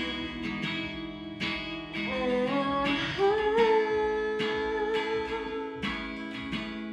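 Acoustic guitar strummed in steady strokes, with a wordless vocal line that rises and holds one long note from about three to six seconds in.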